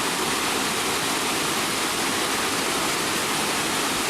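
Waterfall rushing: a steady, even wash of falling water with no breaks.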